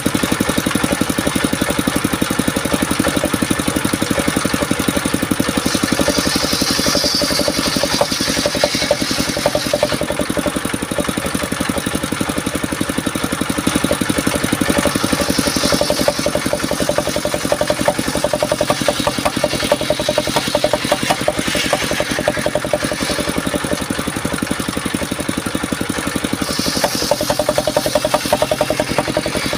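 Mobile circular sawmill running steadily under its engine, with the spinning blade ripping through a log in several stretches, each adding a high rasping whine over the steady drone.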